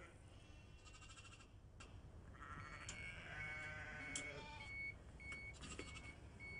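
Lambs bleating, and from about three seconds in a short high electronic bleep repeating roughly every half second or so: the Ritchie Nipper emasculator's timer, which bleeps once the jaws have been closed for the set 10 seconds, signalling that the handles can be released.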